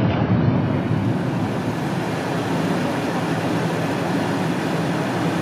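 Steady running noise of a model railway train, most likely the 08 diesel shunter, going round an exhibition layout against the general din of the hall.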